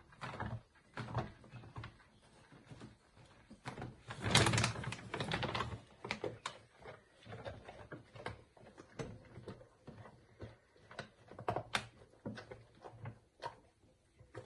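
Basset hound with its head inside a plastic dog food bag, rustling the bag and crunching kibble in a run of irregular clicks and crackles. A louder stretch of rustling comes about four to six seconds in as the dog pushes deeper into the bag.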